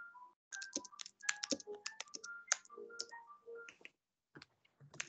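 Quiet computer keyboard typing, a quick run of keystrokes that pauses shortly before the end and picks up again with a few more keys.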